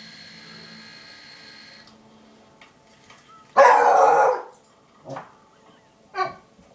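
A dog barking once loudly, about three and a half seconds in, followed by two shorter, quieter sounds. Before it a faint steady tone fades out.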